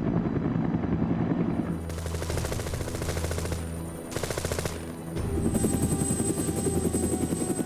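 Rapid machine-gun fire over the steady drone of a helicopter, with a brief drop in the drone about four seconds in.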